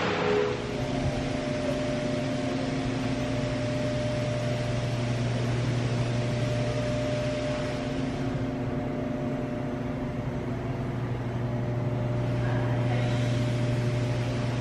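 Steady low machine hum with a few held tones over an even hiss.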